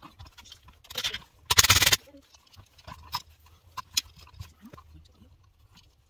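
Scraping and clicking of a plastic electrical box, wall receptacle and wires being handled with work gloves, with one short, loud scrape about one and a half seconds in.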